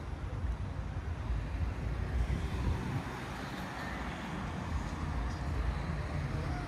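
City street traffic noise: cars going by on the road, a steady rumble with one car passing more loudly about two to four seconds in.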